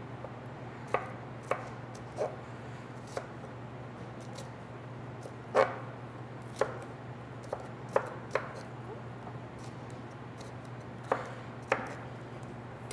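Chef's knife chopping red bell pepper on a wooden cutting board: single sharp knocks of the blade on the board, irregularly spaced, from under a second to a few seconds apart, over a steady low hum.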